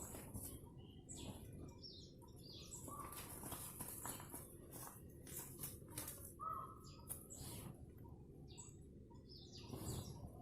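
Birds chirping faintly: many short, high chirps, most of them falling in pitch, with one lower call about six and a half seconds in and a few faint clicks.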